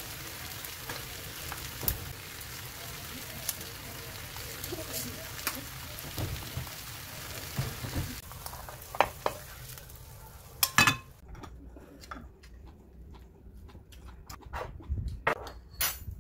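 Braised tofu and enoki mushrooms in sauce sizzling steadily in an enameled cast-iron pan on a gas burner. About eleven seconds in there is a sharp clack, the sizzle stops, and a few light clinks of tableware follow.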